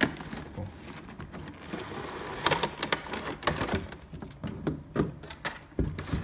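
Clear plastic blister packaging of a boxed figure being handled and pulled apart: an irregular run of sharp crackles and clicks with some rustling.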